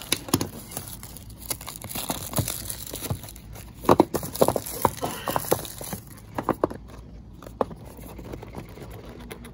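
Handling and opening a small cardboard Mini GT model-car box: a string of light clicks, taps and crinkles of cardboard and plastic, with a cluster of sharper clicks about four to five seconds in.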